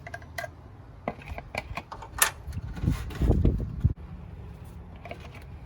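Plastic bag being pulled off and handled: a run of light clicks and rustles, then a louder low crumpling rumble about three seconds in that stops abruptly.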